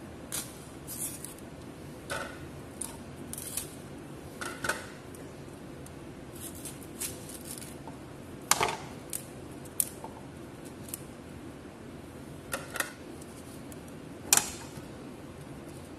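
Raw cauliflower being broken apart by hand into florets: irregular crisp snaps and cracks of the stems, a few seconds apart. Near the end comes a sharper, louder crack as a knife cuts through the stalk on a wooden chopping board.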